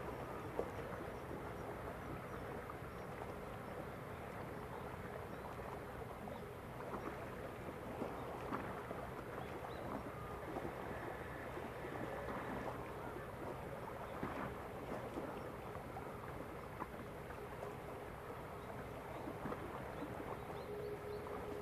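Small waves lapping and splashing at the shoreline, a steady wash dotted with small splashes, over a faint steady low hum.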